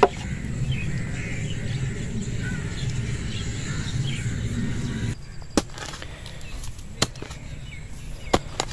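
Birds chirping over a steady low background rumble. After a cut about five seconds in, a spade strikes into hard earth, a handful of sharp knocks about a second apart.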